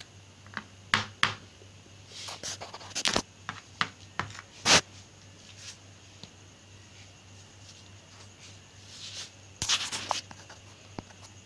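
Scattered scrapes and light taps in a dish as chopped bell pepper is pushed in among grated courgette and onion. The sharpest tap comes almost five seconds in, and a cluster of scrapes comes near the end.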